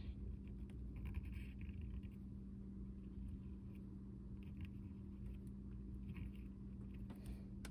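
Wooden stylus scratching short strokes into the black coating of a scratch-art notepad: faint scraping several times over a steady low hum.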